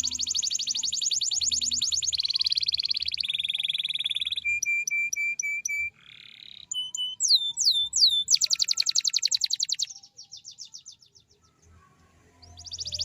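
Domestic canary singing a long, varied song: fast rolling trills, then a run of short repeated notes, a few descending whistles and another rapid trill that fades out about ten seconds in. After a brief pause, a new trill starts near the end.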